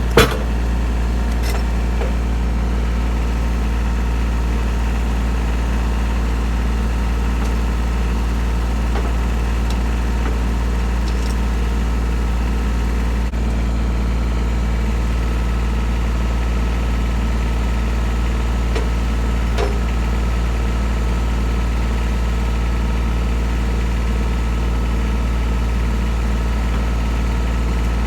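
Sawmill running steadily at a constant speed while milling a large red oak log, with one sharp click right as the sound begins.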